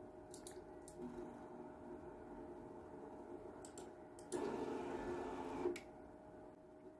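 Creality Ender 3 V3 SE 3D printer running its auto-leveling routine: a faint steady whine from its stepper motors and fans, a few light clicks, and a louder stretch of motor travel about four and a half seconds in, lasting just over a second, as the bed and print head move.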